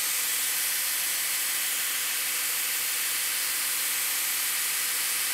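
2x72 belt grinder running unloaded at about 35% speed, its abrasive belt spinning on a 3D-printed PLA drive wheel and tracking true: a steady hiss of the belt with faint steady motor tones beneath.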